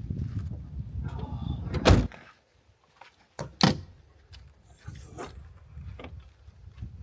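Two heavy thumps of a vehicle door being shut, about a second and a half apart, with a low wind rumble before and after.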